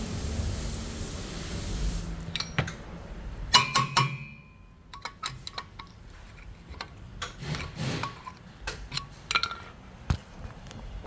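Metal clinks and knocks as the van's rear hub assembly is worked at and handled, with a cluster of ringing metallic strikes about three and a half seconds in and scattered lighter clicks after. A steady hiss runs under the first two seconds.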